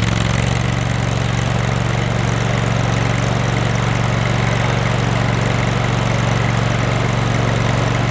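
Engine of a Toro Multi-Force stand-on mower idling steadily, just after starting.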